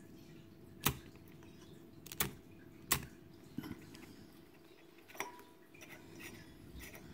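Spark-Lite thumbwheel flint fire starter being struck over tinder: about half a dozen sharp clicks at irregular intervals, the loudest three in the first three seconds and fainter ones after.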